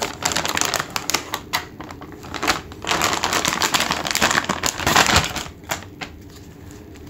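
Clear plastic zip bag crinkling as it is handled, with sharp clicks and taps from the hardware inside; loudest about three to five seconds in, then quieter.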